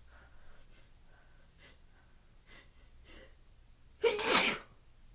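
A person sneezing: several faint hitching breaths catch in the build-up, then one loud sneeze about four seconds in.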